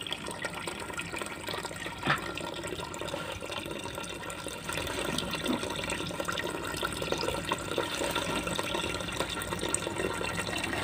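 Liquid running steadily from a hose into a tub of solution, splashing on the surface, a little louder from about five seconds in. A single knock sounds about two seconds in.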